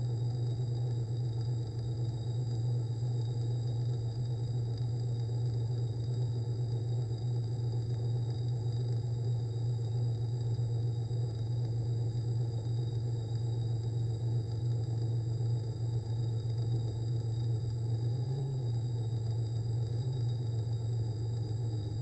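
Steady low motor hum with faint, steady high-pitched whines above it, unchanging throughout.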